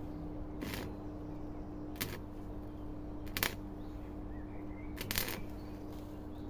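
Four short bursts about every second and a half, over a steady electrical hum, typical of tack-welding a car body panel.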